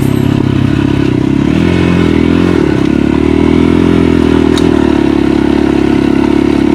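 Motorcycle engine running steadily as the dirt bike rides a dirt track, its pitch rising and falling briefly about two to three seconds in before settling again.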